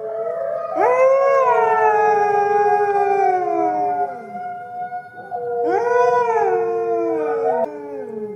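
Red wolves howling in chorus: several long howls overlap, some held on a steady pitch. Two of them rise sharply, about a second in and again near six seconds, then slide slowly down.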